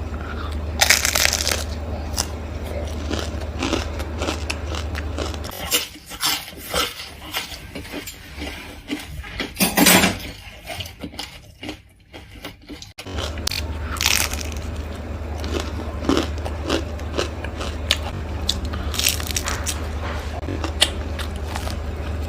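Close-up crunching and chewing of crisp fried fish, many short sharp crunches as bites are taken and chewed. A low hum runs underneath, dropping out for several seconds in the middle.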